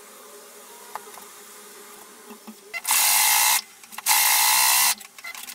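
Household electric sewing machine stitching a strap onto a fabric cover, running in two short bursts of steady buzzing, the first about three seconds in and the second a moment later.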